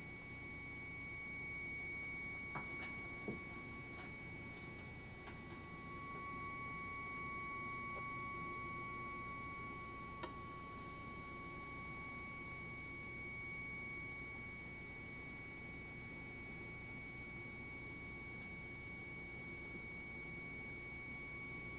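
Stepcraft desktop CNC's stepper motors driving the axes during homing: a steady, fairly quiet high-pitched whine of several fixed tones over a low hum, swelling slightly at times. A few sharp clicks sound, about three seconds in and again around ten seconds in.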